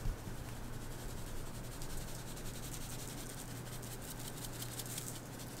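Seasoning being shaken from a small shaker onto a raw fish fillet on parchment paper: a soft, fast, steady rattle of grains, over a low steady hum.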